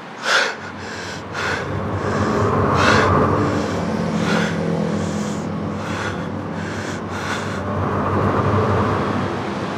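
A vehicle engine running steadily, with short breaths or gasps repeating over it about once a second.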